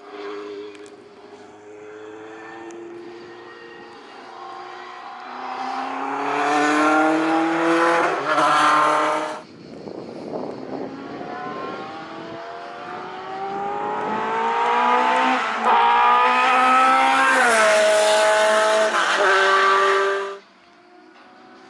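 Historic sports-prototype race car engine revving hard as the car accelerates past, its note climbing through the gears with quick upshifts. Two loud passes each end in a sudden cut.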